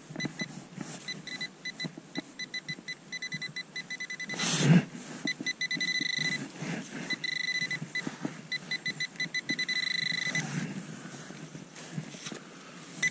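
Handheld metal-detecting pinpointer beeping in rapid short pulses, then sounding longer held tones as it is worked through the dug soil onto a metal target. A loud thump comes about four and a half seconds in, with soil being crumbled and handled around it.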